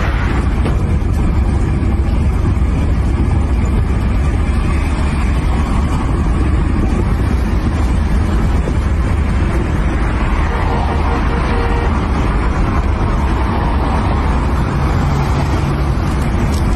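Strong wind buffeting the microphone: a loud, steady low rumble with a constant rushing hiss over it.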